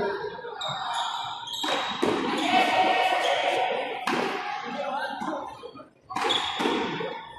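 Frontón rally: a hard ball is struck and smacks off the concrete front wall several times, each hit a sharp crack, over the chatter of spectators' voices.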